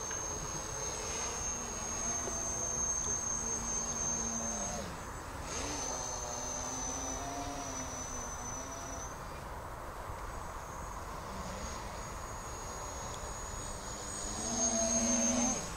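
Distant electric tricopter's three brushless motors and 8x4.5 propellers buzzing, the pitch rising and falling as the throttle changes. The buzz grows louder near the end. A steady high-pitched insect chirr sits above it throughout.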